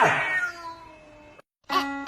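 A cat meowing, the call ending in the first half second and fading out. After a brief silence, music starts near the end.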